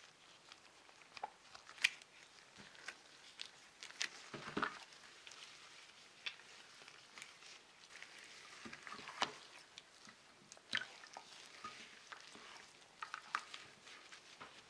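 Gloved hands kneading and pressing a sticky soy-sauce and honey marinade into a raw pork neck: faint wet squelches and sticky clicks at irregular moments.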